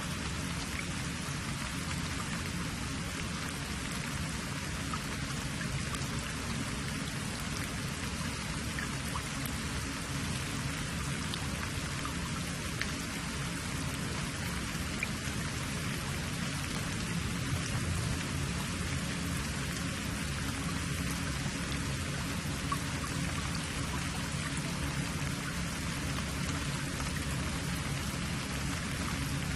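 Steady rain-like hiss with faint scattered ticks, unchanging throughout.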